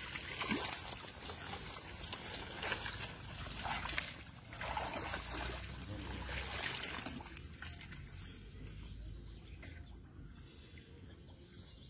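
Hands groping and splashing in shallow, weedy muddy water while fish are caught by hand, with several irregular splashes and sloshes in the first half that settle into quieter water noise.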